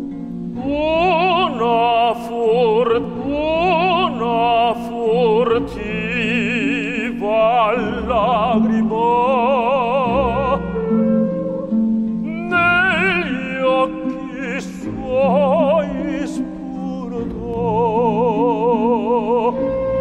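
A man singing opera in full classical voice with wide vibrato over instrumental accompaniment. He sings in phrases of a few seconds with short breaks between them.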